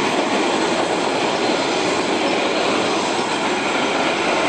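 Keihan Ishiyama-Sakamoto Line train running past close by: a loud, steady noise of steel wheels on the rails and the running gear.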